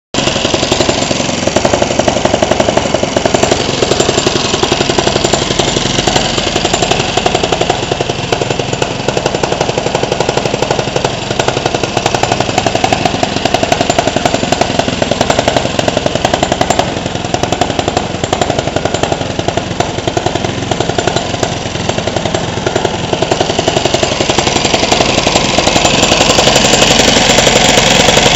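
Modified open-class Honda GX200 kart engine, a single-cylinder four-stroke, running with a fast, even firing beat. It grows louder over the last few seconds.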